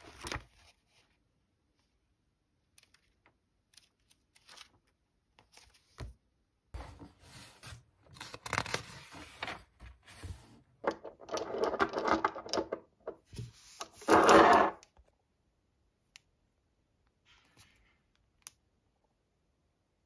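Paper pages of a book being handled and turned, rustling in several bouts with the loudest near the end of the busy stretch. Light scattered taps come before and after.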